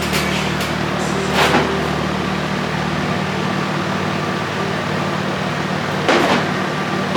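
A steady mechanical hum with two short knocks, one about a second and a half in and one near the end.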